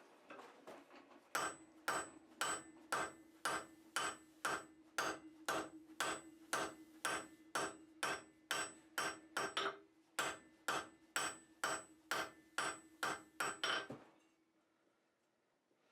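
Blacksmith's hammer forging hot steel on an anvil in a steady rhythm of about two blows a second, with a steady ring under the blows. The hammering stops about two seconds before the end.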